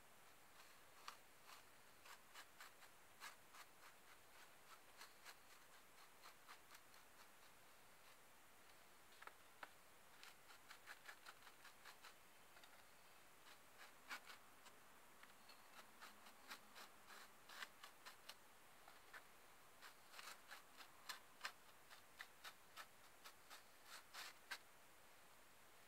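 Faint, irregular light clicks and scratches of a small paintbrush dabbing PVA glue over sawdust on a collagraph plate, a few a second with short pauses.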